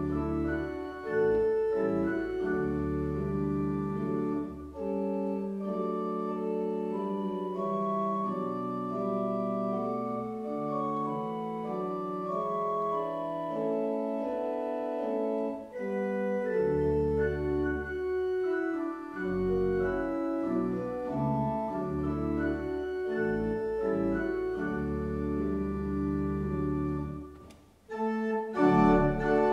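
Pipe organ playing a slow piece in sustained chords over deep pedal notes. Near the end it breaks off briefly, then comes back louder and fuller.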